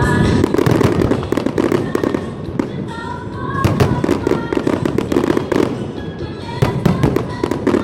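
Fireworks going off in quick succession: dense crackling bangs over a low rumble, heaviest about halfway through and again near the end, with music playing under them.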